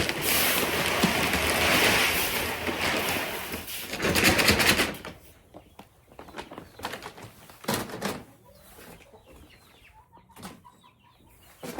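About five seconds of loud rustling and rushing noise, then a quieter stretch in which chickens cluck softly, with a few scattered knocks.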